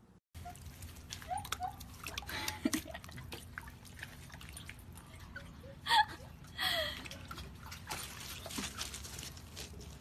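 Water sloshing and dripping in a shallow stone trough as a dog wades through it, with scattered small clicks, a few short squeaky calls, and a sharp louder sound about six seconds in.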